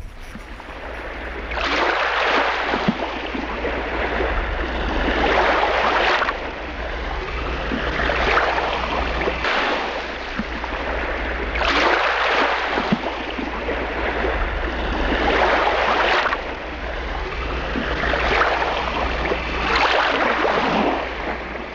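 Sea water rushing and splashing in waves, swelling and easing about every three seconds over a steady low rumble.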